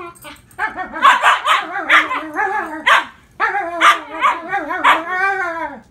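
Three-month-old Siberian husky puppy 'talking' back in a quick run of yowls and barky cries whose pitch bends and wavers, ending in a longer call that falls in pitch: the husky's protest at being pestered.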